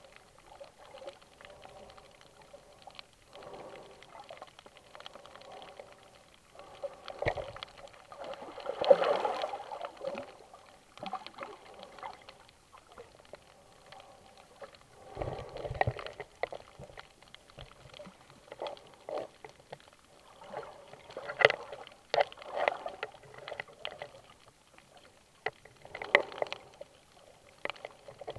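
Water sloshing and gurgling heard muffled underwater around the camera, coming in irregular surges, the biggest about a third of the way in.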